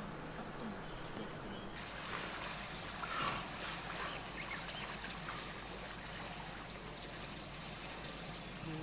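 Water splashing and churning in a dolphin pool as dolphins move at the surface.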